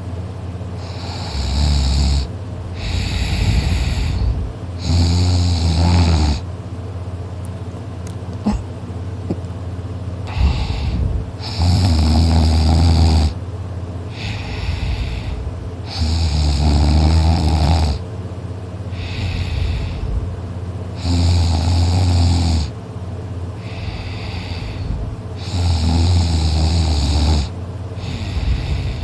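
A person snoring loudly in sleep. A long snore comes about every five seconds, with a shorter, softer one between most of them.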